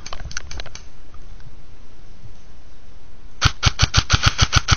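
Airsoft electric rifle firing a rapid full-auto burst, sharp clicks at about ten a second, starting roughly three and a half seconds in. A few softer clicks and rustles come in the first second.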